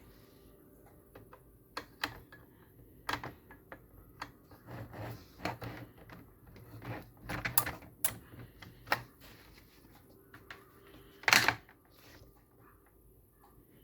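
Keys of a 1993 IBM Model M buckling-spring keyboard being pressed, giving irregular sharp clacks that come thickest in the middle, with one loudest clack near the end.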